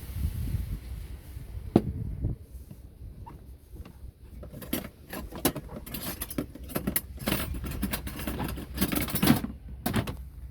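Kitchen handling noise: irregular clicks, knocks and scraping rustles of utensils and containers, busiest in the second half.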